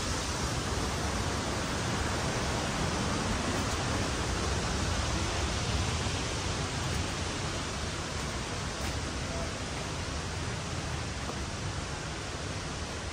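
Steady rushing roar of a nearby waterfall, getting a little quieter over the second half.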